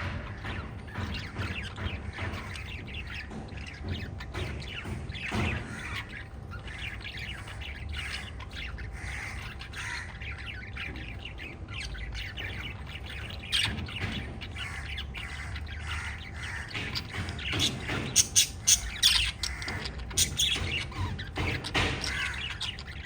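Several lovebirds chirping and squawking over a steady low background rumble, with a burst of louder, shrill squawks about 18 seconds in.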